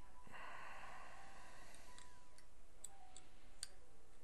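A brief hiss, then a string of sharp, separate clicks: a metal dental instrument tapping and catching against the implant abutment screws and the crown in the bridge's access holes.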